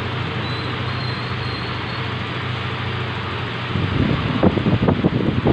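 Freshly top-overhauled Yamaha Mio MXi 125 scooter's single-cylinder four-stroke engine idling steadily; about four seconds in, louder, uneven low pulses join it.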